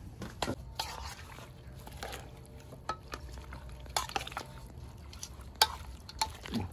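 Metal spoon stirring chunks of chicken and herbs in a stainless-steel pot, clinking against the pot's side at irregular intervals, with one louder clink near the end. A steady low hum runs underneath.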